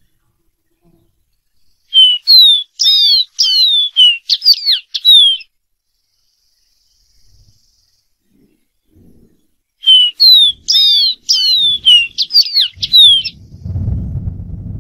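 Dark-throated seedeater (Sporophila ruficollis) singing two phrases of rapid, clear whistled notes, each about three seconds long, with a pause of several seconds between them. A low rumble starts near the end.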